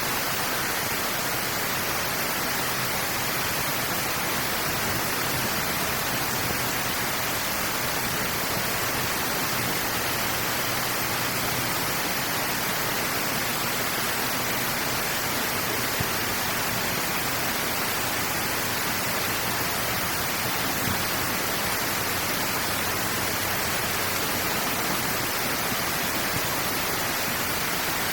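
Water rushing steadily through a drainage outlet after heavy rain: an even, unbroken hiss.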